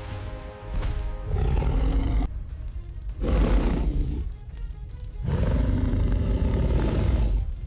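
Deep monster roars over background music: several long bellows, each lasting one to two seconds.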